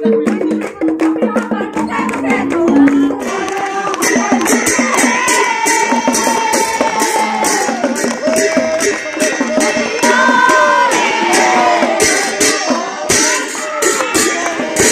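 Group of women singing an Assamese devotional naam chant together, with steady rhythmic hand clapping keeping the beat. The singing and clapping get fuller about four seconds in.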